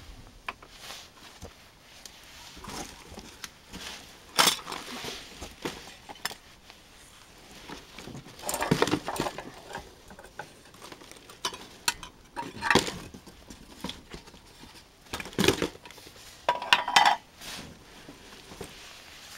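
Cast resin orgonite pieces, plastic trays and a silicone mould knocking and clinking together as they are handled in a cardboard box. Irregular clatter with several louder knocks and a few longer rattling stretches.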